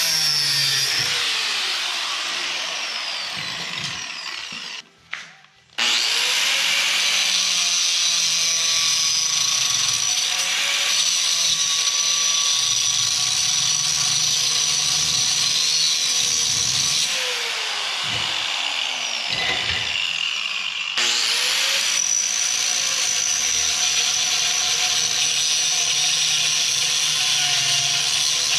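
Angle grinder cutting into steel clamped in a vise: the steady, high-pitched scream of the disc biting the metal. It cuts out for about a second about five seconds in, and past the middle it eases off for a few seconds with a falling whine before biting in again.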